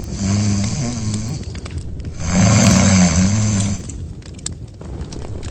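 Cartoon character snoring loudly: two long snores with a wavering pitch, each over a second long, with a short break between them.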